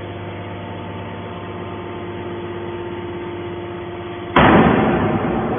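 Hydraulic scrap baler's power unit running with a steady hum. About four seconds in comes a sudden loud crash that fades away over about a second.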